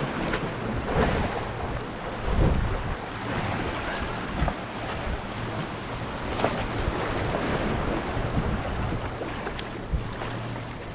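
Waves washing on the shore, with wind gusting over the microphone and a few louder surges.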